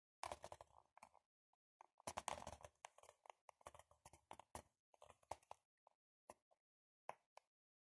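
Handling noise: scratchy rustling with clicks, a short burst at the start, a longer one about two seconds in, then a few scattered clicks.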